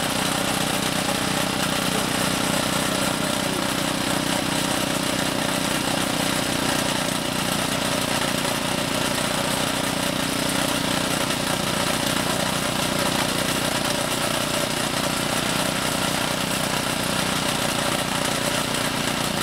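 Small petrol engine of a portable soil drilling rig running steadily under a drilling load, its pitch and loudness even throughout.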